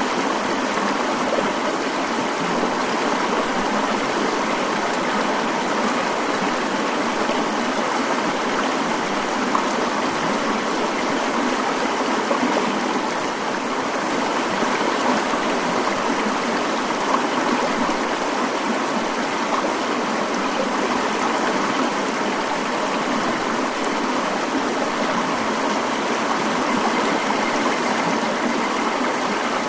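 Mountain stream flowing: a steady, unbroken rush of water with little low rumble.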